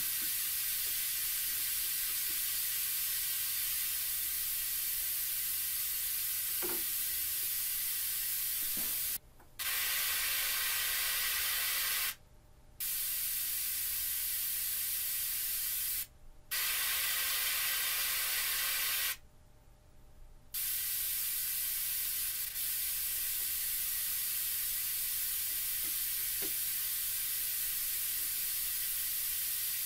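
Visaton SC 10 N tweeter playing a steady hiss of test noise through a first-order capacitor high-pass filter, so mostly the upper range comes through. It cuts out suddenly four times, the longest gap about a second and a half, as the circuit is broken while the capacitor is swapped, and for a couple of seconds around the tenth second it sounds fuller with more lower range.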